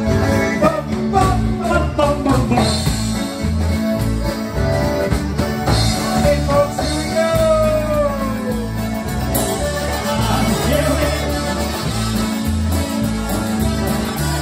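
Live polka band playing a polka: concertina melody over electric bass guitar and a drum kit keeping a steady beat.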